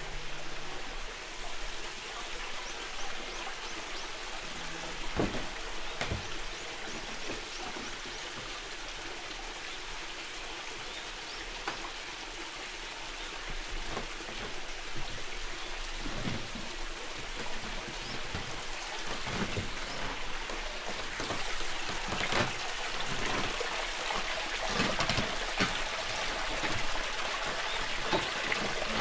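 Water splashing and trickling steadily, with irregular drips and plops scattered through it, growing a little louder in the second half.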